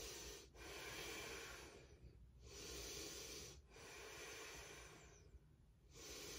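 A woman's faint, slow, deep breathing: deliberate in- and out-breaths of about a second each, with short pauses between.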